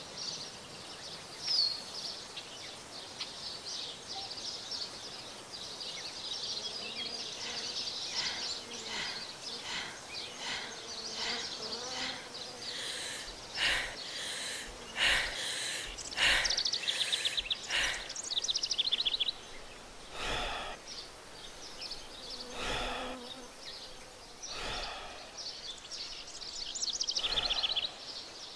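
Nature ambience of small creatures chirping and trilling high up, with a string of sharper calls in the middle and rapid trills about two-thirds through and again near the end.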